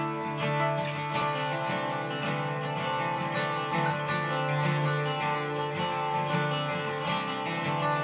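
Background music: acoustic guitar picked and strummed in a steady, even rhythm.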